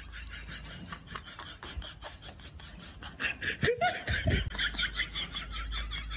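Laughter in quick repeated pulses, loudest about four seconds in.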